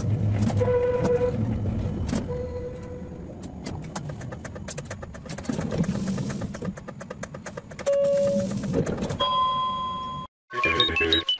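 Helsinki tram running on its rails, a rumbling ride noise that eases off as it comes to a stand. Near the end two electronic beep tones sound in turn, then after a brief cut-out background music starts.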